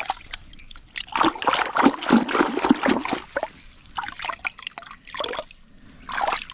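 Water splashing and sloshing in short, irregular bursts in a shallow, freshly dug seep hole as it is dug deeper below the water line.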